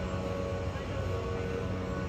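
Loud, steady mechanical drone made of several held tones over a rushing haze, unchanging throughout: a large motor or machine running.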